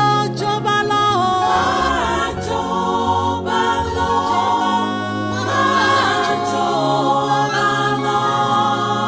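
Worship music: a choir singing sustained vocal harmonies over held low notes, with slow sliding melody lines and no clear words.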